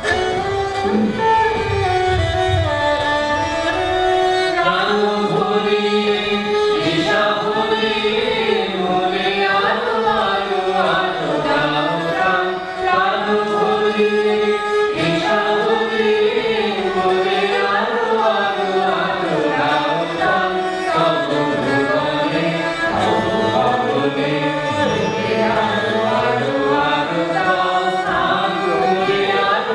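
A song in an Indian style: a single melody sung over instrumental accompaniment, running on without a break.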